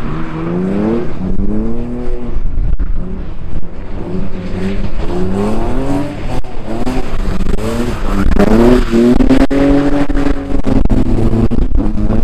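Several racing engines revving hard, their pitch climbing over and over in short rising runs as the vehicles accelerate, with one note held longer near the end.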